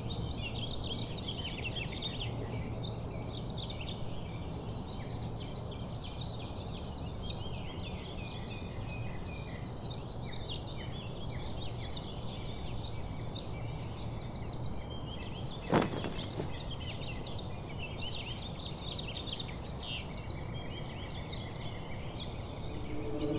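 Outdoor ambience: many small birds chirping over a steady low background rumble, with a single sharp click about two-thirds of the way in.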